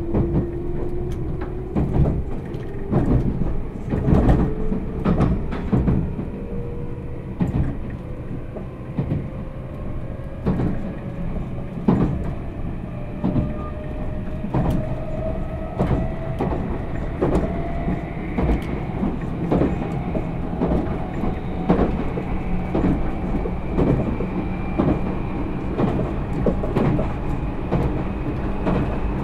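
Meitetsu 1000 series 'Panorama Super' electric train running, heard from inside the car: the traction motor whine rises steadily in pitch as the train gathers speed, over a low rumble and irregular clacks of the wheels over rail joints.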